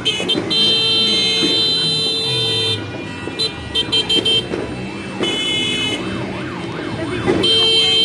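Horns blaring in long steady blasts that stop and start, mixed with wailing siren-like whistles rising and falling in pitch: the din of New Year noisemakers.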